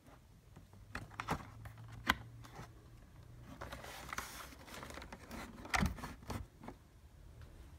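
Handling noise around the back of a router: a few light, sharp clicks and some rustling as the plugged-in power and Ethernet cables are handled, over a faint steady low hum.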